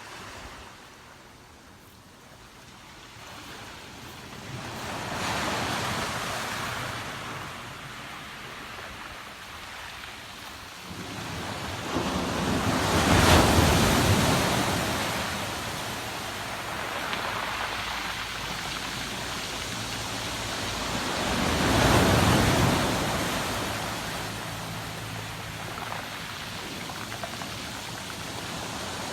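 Ocean waves breaking and washing up on the shore: three surges of surf, the loudest about halfway through, between softer stretches of wash.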